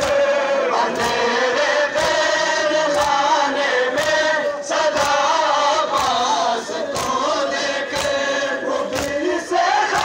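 Large crowd of men chanting a noha, a Shia mourning lament, in unison, with rhythmic chest-beating (matam) slaps landing about once a second to keep time.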